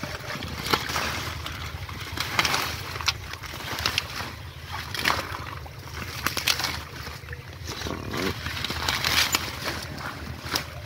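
Water hyacinth stems and dry leaves rustling, crackling and snapping as they are pulled apart by hand in repeated rough handfuls, over a steady low hum.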